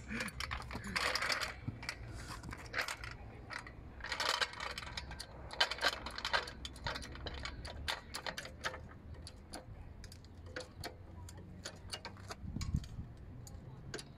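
Irregular metallic clicks and ticks from a hydraulic trolley floor jack being worked by its long handle under the car's sill.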